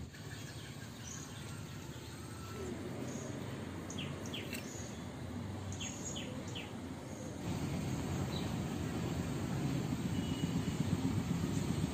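Outdoor ambience: a steady low rumble that grows louder about two-thirds of the way through, with a handful of short high chirps in the middle.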